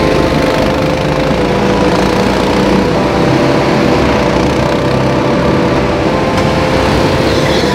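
Go-kart engines running on the track, a steady drone that holds its pitch.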